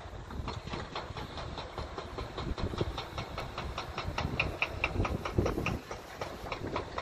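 Tracked excavator and articulated dump truck working: diesel engines rumbling under a steady metallic clanking, about four or five clanks a second. A few heavier low thuds come about five seconds in.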